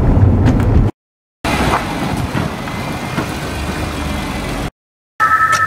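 2002 BMW M3 on the move: engine and road rumble inside the cabin, then, after a short silent cut, the car's straight-six and tyres heard from outside as it drives slowly. Near the end a different sound starts, sharp clicks over two steady high tones.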